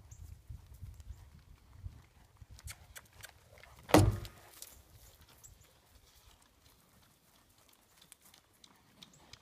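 Horse's hooves thudding on dry ground as it moves around the paddock, with one sharp, loud knock about four seconds in as it jumps over a blue plastic barrel.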